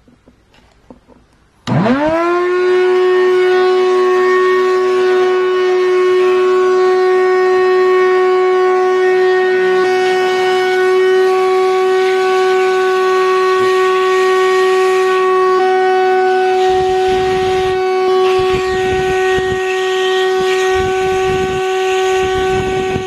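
The electric motor of a handheld cordless power tool, switched on about two seconds in: it spins up within a fraction of a second and then runs with a loud, steady whine, with some gusts of noise near the end.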